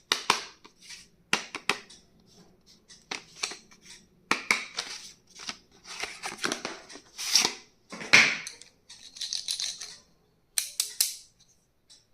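Stationery packaging being handled and opened by hand: irregular crinkles, rustles and sharp clicks.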